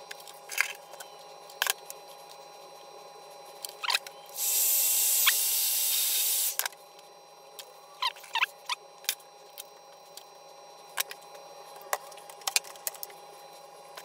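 Light clicks and ticks of small wires and connectors being handled. Near the middle comes a steady hiss lasting a little over two seconds, the loudest sound here.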